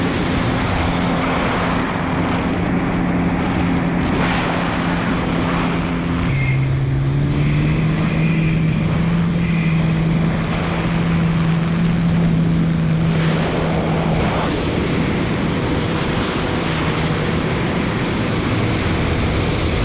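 2019 Kawasaki jet ski engine running under way, over a steady rush of water and wind. Its note drops about six seconds in, then climbs a little and holds steady.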